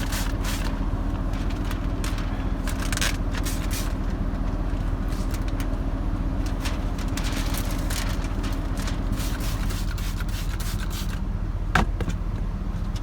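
Short hissing squirts from a hand spray bottle of soapy tint solution, coming irregularly, over a steady low hum; one sharper click near the end.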